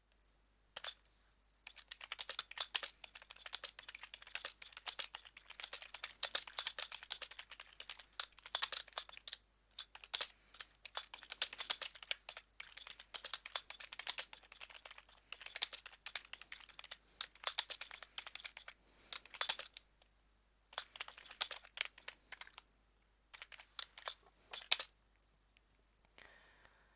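Typing on a computer keyboard: fast runs of key clicks in bursts of a few seconds, with short pauses between them. A single keystroke comes just under a second in, and steady typing starts about two seconds in.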